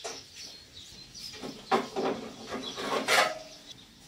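A few metal clanks and knocks as a go-kart's tubular steel roll cage is handled and lifted off its frame, one clank about three seconds in ringing briefly. Birds chirp faintly in the background.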